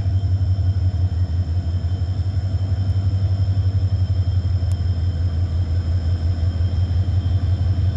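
Diesel engine of a CC205 locomotive hauling a Babaranjang coal train, a steady low rumble with two thin, steady high whines above it.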